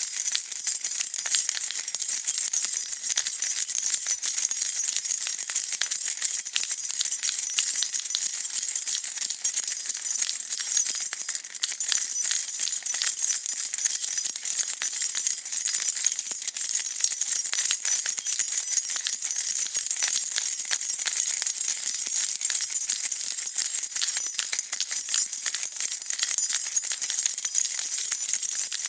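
A bunch of metal keys being shaken and jingled continuously, a dense bright clinking and rattling of keys against each other and the key ring.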